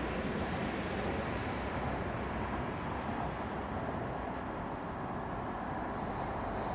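Steady rushing of water spilling over a small stream weir, an even unbroken noise.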